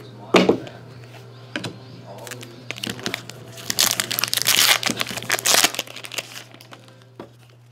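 A foil trading-card pack wrapper crinkling as it is torn open, densest from about four to six seconds in. It follows a sharp knock about half a second in.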